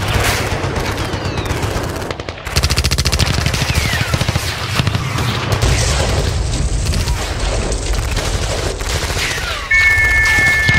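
Dense machine-gun and rifle fire, a rapid, unbroken rattle of shots. Near the end a whistle is blown once for about a second, the trench whistle signalling the advance.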